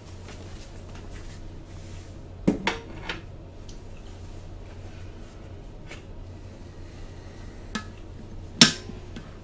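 Hard tea things being handled: sharp knocks and clinks of crockery or utensils, three close together about two and a half seconds in, a lighter one later, then the loudest, ringing briefly, near the end. A low steady hum runs underneath.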